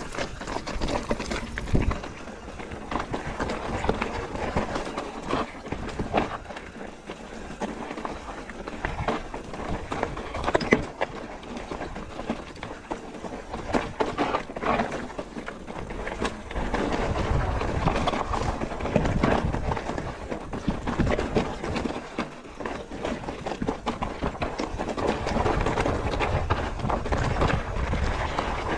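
Mountain bike riding down a loose, rocky trail: tyres crunching over stones and the bike rattling, with frequent sharp knocks as it hits rocks.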